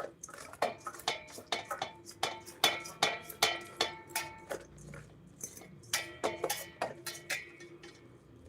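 A metal utensil striking and scraping against a metal cooking pot in a rapid series of ringing clinks, about two or three a second, with a brief lull midway.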